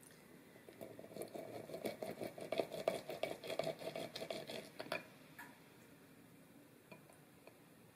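A lemon half twisted and pressed by hand on a plastic reamer juicer over a glass bowl: a quick run of small clicks and rasps for about four seconds, stopping about five seconds in.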